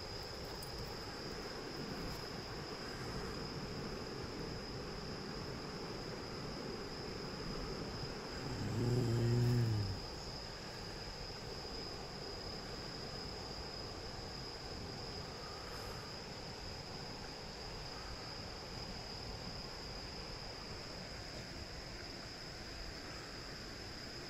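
Insects singing one steady, unbroken high-pitched note, over a faint even hiss. About nine seconds in comes a short, louder low-pitched hum with a few overtones, lasting about a second and a half and dipping in pitch as it ends.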